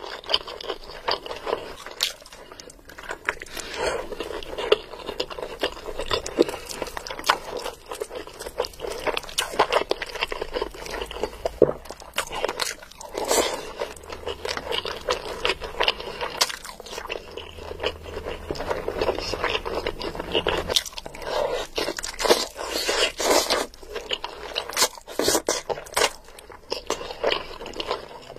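Close-miked mouth sounds of eating by hand: wet chewing and smacking of mouthfuls of biryani rice and curried meat, with frequent sharp clicks and crunches at an irregular pace.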